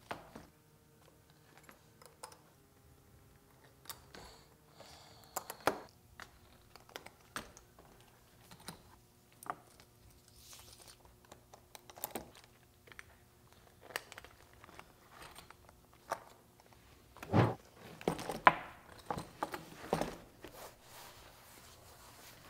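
Metal snap hooks and rings on a leather apron's straps clicking and jangling as they are handled, with leather rustling between the clicks. A louder flurry of handling comes about three-quarters through.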